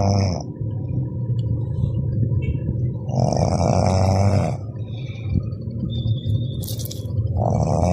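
Loud snoring: one long rasping snore about every four seconds, over a steady low hum.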